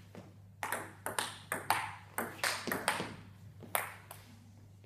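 Table tennis rally: the celluloid ball clicks sharply off paddles and table in a quick, uneven series, about ten clicks in three seconds. The clicks stop near the end.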